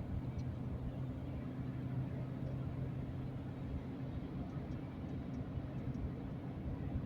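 Steady road and engine noise inside a car's cabin while driving on a highway, a low, even drone.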